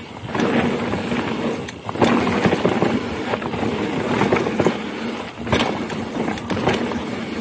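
Mountain bike riding fast down a dirt trail: a steady rumble of tyres and rattling bike, with a few sharp knocks from bumps about two seconds in and again about five and a half seconds in.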